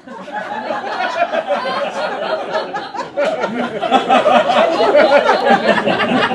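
Live audience laughing and chattering, many voices at once, starting abruptly and carrying on.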